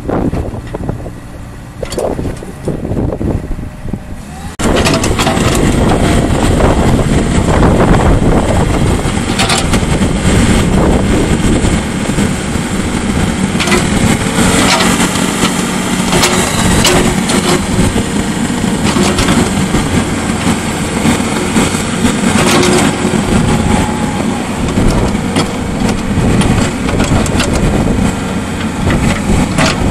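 2004 IHI 45NX mini-excavator running as its boom, arm and bucket are worked. The engine jumps much louder about four and a half seconds in and stays there, with short clanks here and there.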